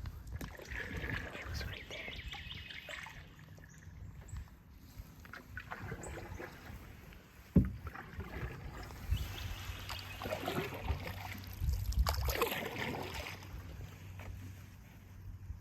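Canoe paddles dipping and pulling through the water in uneven swishing strokes, with one sharp knock about seven and a half seconds in.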